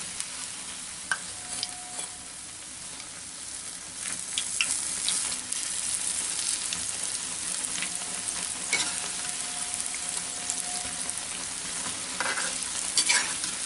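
Coriander-leaf pakoras deep-frying in hot oil in a kadai: a steady sizzle that grows louder about four seconds in, with a few light clicks of a metal slotted spoon as the fritters are turned over.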